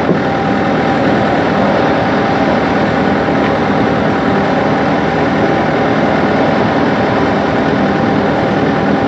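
Heavy engine running steadily at a constant speed, with a steady whine above it.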